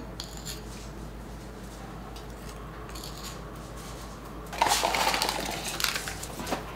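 A small spoon stirring and scraping through dry dog kibble in a ceramic bowl: a few light clicks, then about four and a half seconds in a rattling, scraping burst lasting about a second. Near the end, a sharp click as a small plastic medicine bottle is set down on the table.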